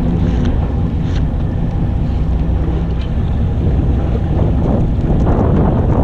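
Wind buffeting the microphone over the steady low hum of a fishing boat's engine. Sea water washing against the hull grows louder in the second half.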